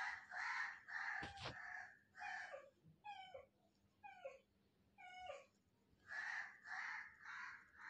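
Kittens mewing over and over: short, high cries that fall in pitch, about one a second, mixed with rougher, breathy cries. There is one soft knock about a second and a half in.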